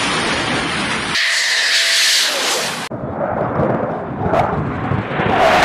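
Jet aircraft noise in short spliced clips: a loud rushing roar that switches abruptly to a different jet sound about a second in and again about three seconds in. The last part is a low-flying twin-engine fighter jet passing, its sound sweeping as it goes by.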